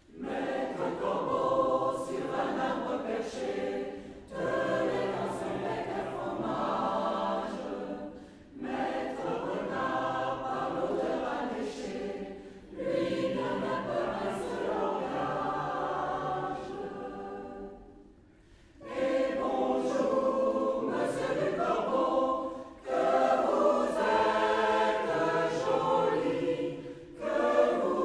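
A choir singing in phrases of a few seconds each, with short breaks between them and a longer break about two-thirds of the way through.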